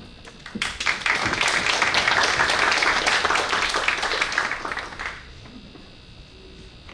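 Audience applauding in a lecture hall, the clapping starting about half a second in, holding steady, and dying away after about five seconds.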